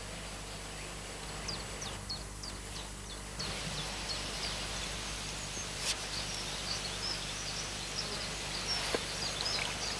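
Small birds chirping in many short, high calls, thickening from about three seconds in, over a steady low hum, with two sharp clicks about six and nine seconds in.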